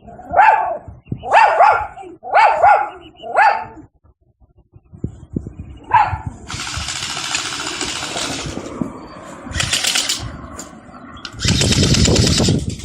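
A dog barks four times, about a second apart, and once more about six seconds in. Long stretches of rasping noise follow, the loudest near the end.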